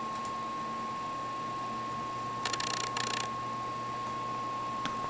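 Two short bursts of rapid mechanical ticking, about two and a half and three seconds in, over a steady hiss with a faint high hum; a single click near the end.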